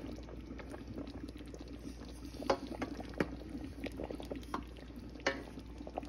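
A pot of chicken afritada bubbling on the stove: its thick tomato sauce pops irregularly, with a few louder pops.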